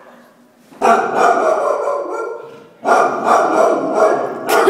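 Pit bull barking at a cardboard box held out toward her, a box she is afraid of. The barking comes in two long, loud runs, starting about a second in with a short break in the middle.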